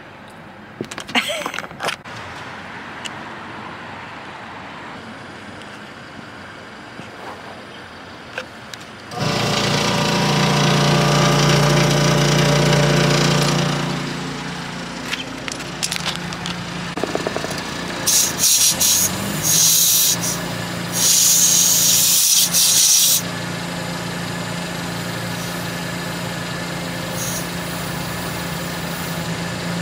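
A motor starts about nine seconds in, runs loud for about five seconds, then settles to a steady lower hum. A few short hissing bursts come shortly after.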